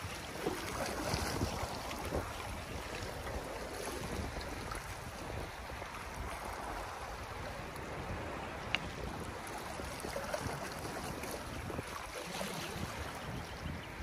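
Sea swell washing and lapping against concrete breakwater blocks, with wind rumbling on the microphone. One sharp tick about two-thirds of the way through.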